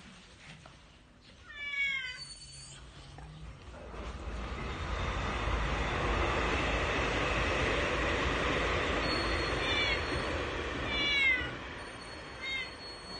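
Domestic cat meowing several times, each a short cry falling in pitch: once near the start, then two or three more near the end. Under the later meows, a loud steady rushing noise swells up from about four seconds in and eases off near the end.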